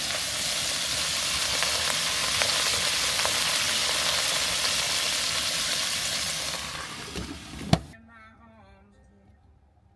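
A steady hissing noise that fades in and holds for about seven seconds before fading away, ending with a sharp click; faint voices follow.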